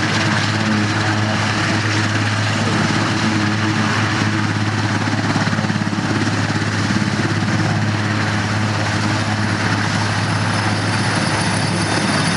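Airbus (Eurocopter) AS332B Super Puma twin-turbine helicopter lifting off into a low hover: a steady, loud drone of turbines and main rotor with a strong low hum.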